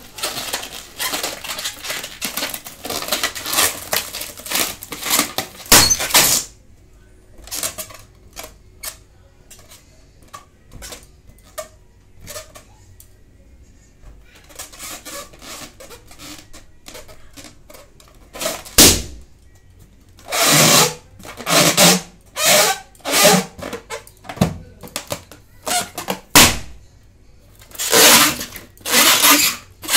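Inflated latex balloons squeaking and rubbing as hands twist them, with three sharp balloon pops: about six seconds in, near the middle, and near the end.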